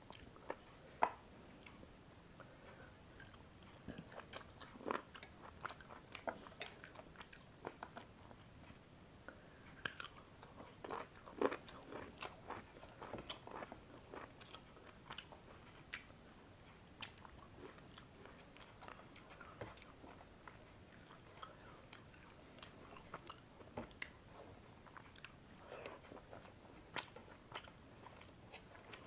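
A person eating close to the microphone: chewing and biting food, with many short sharp mouth clicks and smacks at an irregular pace.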